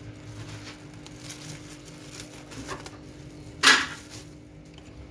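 Plastic cling film being crinkled and peeled off a glass bowl: soft rustles, then one louder crackle about three and a half seconds in, over a faint steady hum.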